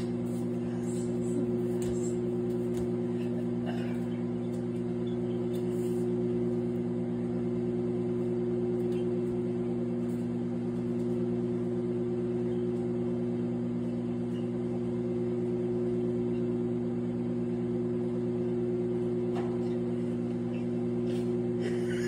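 Countertop microwave oven running mid-cycle: a steady electrical hum throughout, with a few faint ticks.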